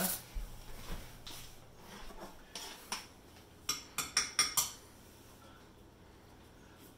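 A spoon clinking and scraping against a cooking pan while scooping a taste of thick, simmering blueberry sauce: scattered clinks, then a quick cluster of sharp clinks about four seconds in.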